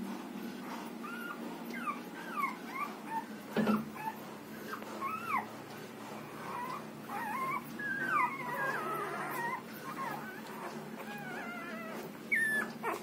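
Newborn Rottweiler puppies squeaking and whimpering while they nurse: many short, high cries that slide up and down, overlapping one another, with a single knock about three and a half seconds in.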